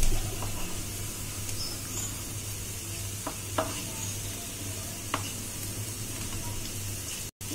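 Onion pakoras sizzling steadily as they deep-fry in hot mustard oil, with a few short taps and scrapes of a wooden spatula against the pan as the fritters are turned over.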